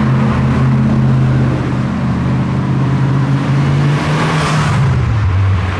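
Car engine running close by at a steady low speed, its note dropping slightly near the end.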